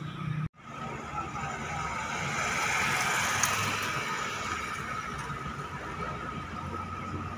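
Street traffic noise that cuts out for an instant near the start, then swells as a vehicle passes about three seconds in and eases off again.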